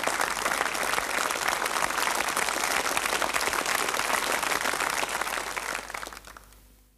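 Audience applauding, a dense patter of clapping that fades out about six seconds in.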